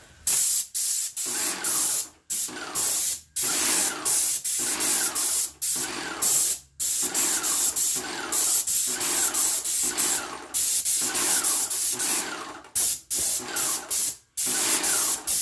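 Airless paint sprayer gun hissing as it sprays paint, in a series of bursts broken by short stops. It is pushing out the last paint left in the hose while water is drawn into the line behind it.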